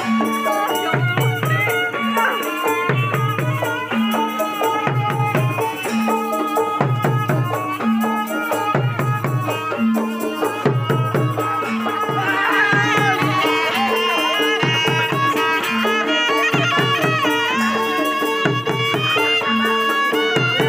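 Traditional Betawi music accompanying a silat bout: drums beat a steady repeating stroke about once a second under a sustained ringing tone, while a wind instrument plays a winding, ornamented melody above.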